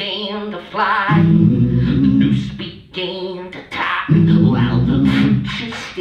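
A cappella vocal music: a man beatboxing and singing into a handheld microphone, over a low vocal bass pattern that starts and stops in repeating blocks, with wavering higher vocal lines on top.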